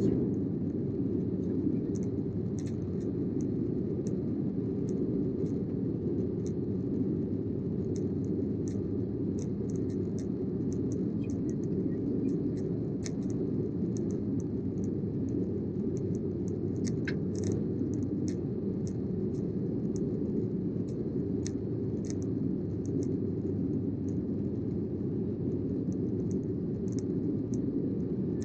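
Steady low cabin noise of a Sukhoi Superjet 100 in flight, from its SaM146 turbofan engines and the airflow, with light scattered clicks throughout.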